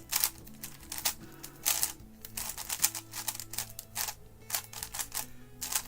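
GAN 11 M magnetic speedcube being turned by hand, its plastic layers clicking in quick, irregular bursts.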